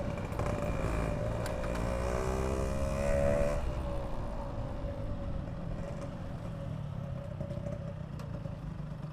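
Yamaha RX-King single-cylinder two-stroke motorcycle engine running. It revs up, rising in pitch about two seconds in, drops back sharply near four seconds, then runs steadily.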